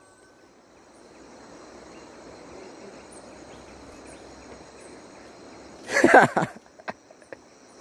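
Insects in the surrounding vegetation keep up a steady, high-pitched drone over a soft background hiss. About six seconds in there is a short, loud, voice-like call, followed by a few sharp clicks.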